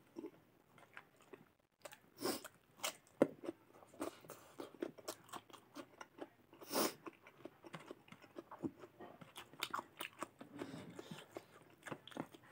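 Close-miked eating sounds of rice and mutton curry eaten by hand: irregular wet chewing, lip smacks and crisp crunches of raw cucumber, with the loudest crunch about seven seconds in.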